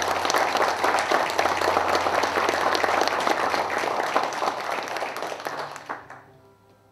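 A roomful of people applauding with a dense, steady clatter of hand claps that dies away about six seconds in.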